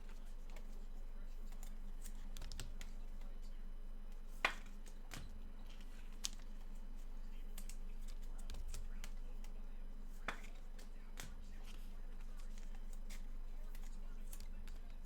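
Scattered sharp clicks and light taps from trading cards and their packaging being handled on a table, over a steady low hum. The loudest click comes about four and a half seconds in.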